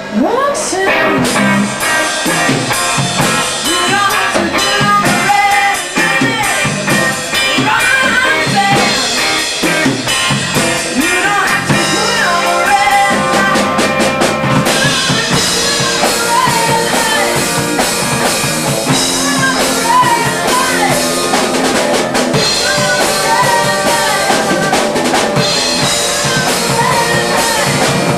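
Live band playing loud music driven by a drum kit, with snare and rimshot hits. It comes in suddenly at the start.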